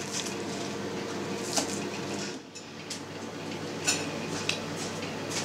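Kitchen knife knocking on a wooden cutting board while slicing green onion: a few scattered sharp knocks and clinks over a faint steady hum.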